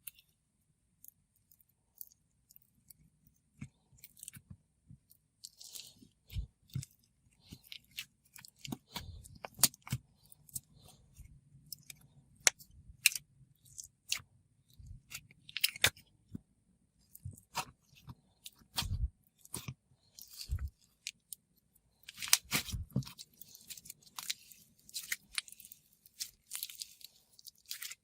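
Glossy slime layered with snow fizz and a wax shell being squished and pressed by hand, giving irregular crisp clicks, pops and crackles, with denser crunchy stretches as the wax breaks up.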